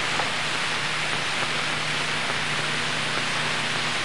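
Steady hiss of an old film soundtrack, with a faint low hum underneath. No impacts stand out.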